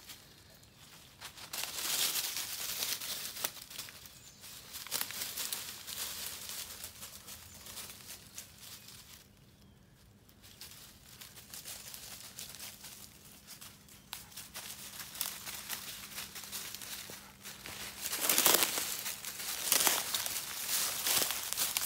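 Dogs digging and scrabbling in dry leaf litter at the hollow base of a tree, the leaves crunching and rustling in uneven bursts, loudest about three-quarters of the way through.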